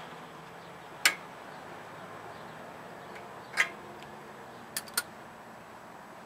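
Metal hand tools clinking on the valve gear of a Briggs & Stratton Intek OHV lawn tractor engine during a valve lash adjustment: four sharp clicks, the loudest about a second in, another past three and a half seconds, and a quick pair about five seconds in.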